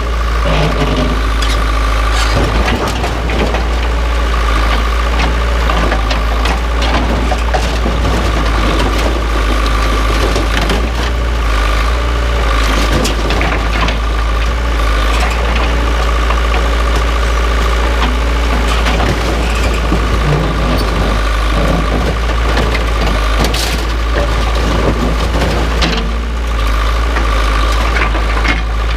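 Case 580 backhoe engine running steadily at idle, with scattered sharp metal clanks and knocks throughout.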